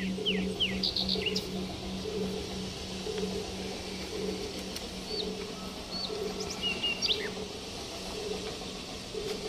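Small birds chirping in short, quickly falling calls, thickest in the first second or so and scattered later, over a low, steadily pulsing drone of ambient background music.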